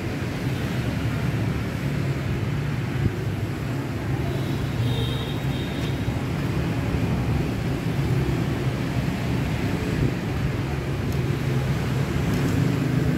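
Steady low rumble and hum of mixed engine noise, like road traffic, with a faint brief high-pitched tone about five seconds in.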